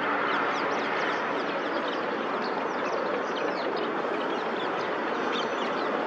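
Dense chorus of many small birds calling at once: a steady mass of overlapping chirps, full of quick, short, falling high notes.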